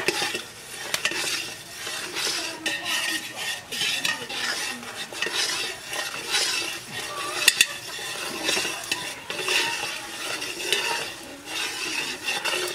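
Long metal spoon stirring and scraping around a large aluminium cooking pot of steaming curry, swishing roughly once a second, with a few sharp clinks of metal on metal.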